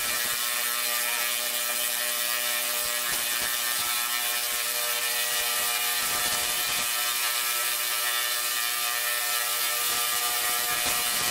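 High-voltage sparks arcing from a performer's hands into the air, a steady rapid crackling buzz that holds without a break.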